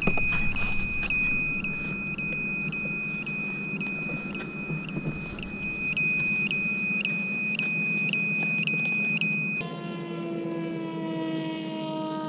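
A steady high electronic beeper tone, broken by short gaps nearly three times a second, cuts off suddenly about ten seconds in. After that, the RiteWing Drak flying wing's electric motor and 11x5.5 propeller buzz in flight, the note falling slowly.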